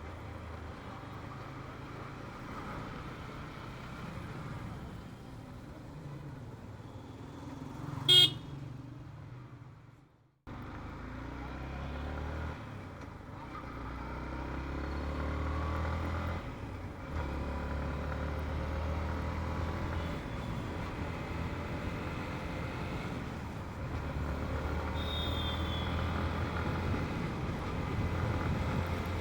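Wind noise rumbling over the microphone while riding through traffic, with engine and road noise. A short vehicle horn honk sounds about eight seconds in. The sound fades and cuts out briefly about ten seconds in, then returns as a louder wind rumble.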